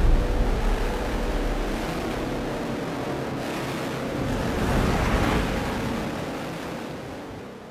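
Trailer sound-design effect: a rushing, rumbling noise that swells about five seconds in and then fades out.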